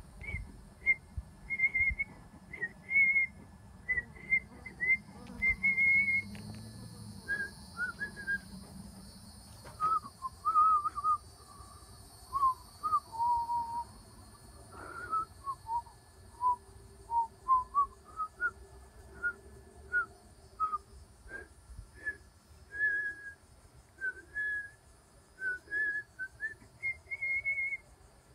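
A person whistling a tune: a run of short notes, a few held longer, that wander down in pitch through the middle and climb back up near the end. Wind rumbles on the microphone for roughly the first ten seconds.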